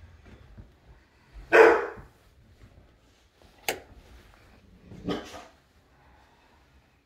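A dog barking indoors: a few separate barks, the loudest about one and a half seconds in.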